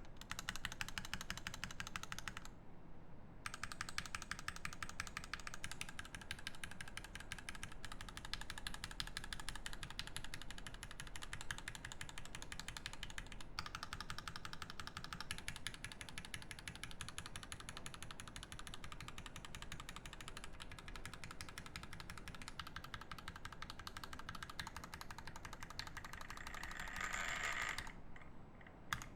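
Fast, continuous typing on a Godspeed75 mechanical keyboard with lubed Zeal Turquoise Tealio tactile switches on a brass plate and GMK Ashes keycaps: a dense run of key clacks. There is a short pause about three seconds in, and the typing stops near the end.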